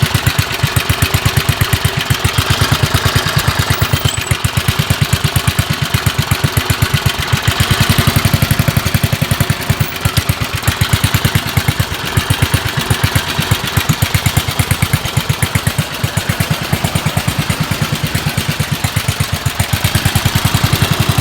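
Single-cylinder 8 hp Briggs & Stratton engine on a Rugg Carpet Cut riding mower running steadily, picking up a little about eight seconds in. Its governor is broken, so its speed is set by hand on a modified throttle.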